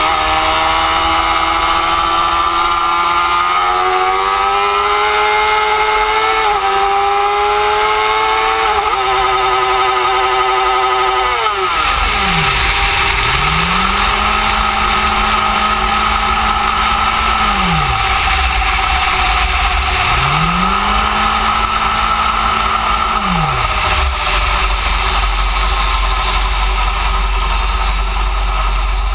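Motorcycle engine pulling hard, its pitch climbing with small breaks where it shifts. About eleven seconds in the revs fall away steeply, and the engine then runs at a steadier, lower note under a louder rushing noise.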